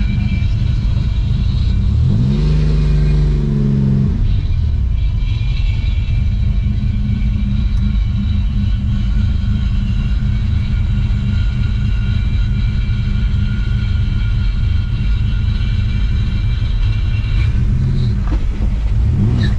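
Car engine running with a loud low rumble, revving up briefly about two seconds in and again near the end.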